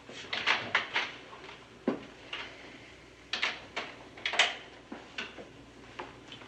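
Irregular sharp clicks and clacks of hard objects, about fifteen in all, with a duller knock about two seconds in and the loudest click just past the middle.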